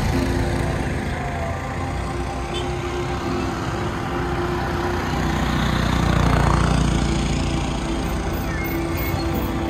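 Road traffic: vehicle engines running, swelling louder about six to seven seconds in as a vehicle passes.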